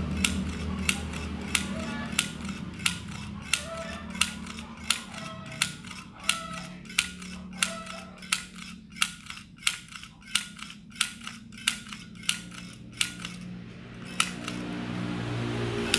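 Handheld stapler-style mini sewing machine clicking with each squeeze of its handle as it stitches through fabric, about three clicks every two seconds in an even rhythm, stopping near the end.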